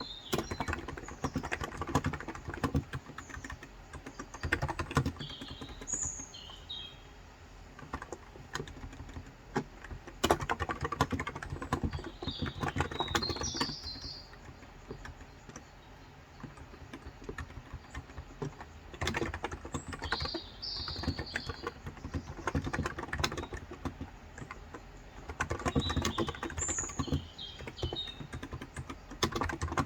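Typing on a COX Endeavour electro-capacitive (Topre-style) 35 g tenkeyless keyboard, in bursts of rapid keystrokes with short lulls. Small birds chirp in brief clusters every several seconds.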